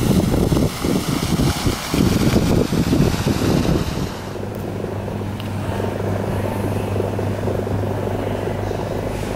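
Wind buffeting the microphone in uneven gusts. About four seconds in, this gives way to a steadier, quieter low hum.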